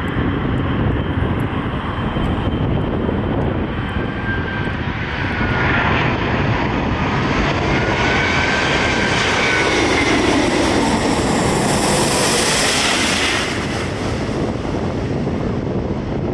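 Jet airliner passing close overhead: its engine noise rises to a peak about three-quarters of the way through and then fades, with whining engine tones that shift in pitch as it goes by. Wind on the microphone runs underneath.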